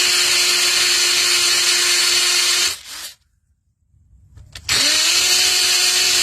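Electric drill boring holes in the concrete around a buried hose bibb. It runs steadily with a high whine, stops about three seconds in, then spins up again a second and a half later and keeps running.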